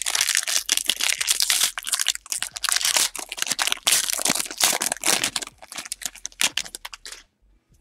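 Wrapper of a 2017 Prestige Football trading card pack being torn open and crinkled, a dense crackling and tearing that stops about seven seconds in.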